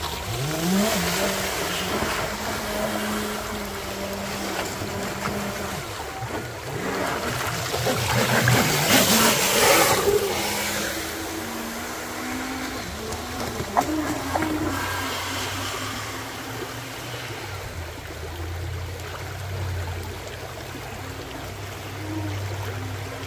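Pro Boat Jet Stream radio-controlled jet boat running on the water, its brushless motor note climbing in pitch as it throttles up about half a second in, then rising and falling as it runs. It is loudest around nine seconds in, with a rush of water noise.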